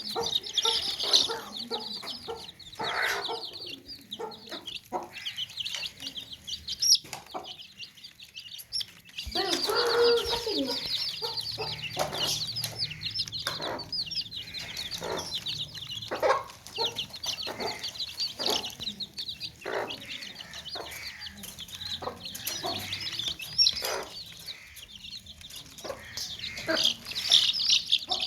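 Many baby chicks peeping continuously in a basket, a dense chorus of rapid high-pitched chirps, with a few lower calls and scuffling knocks mixed in.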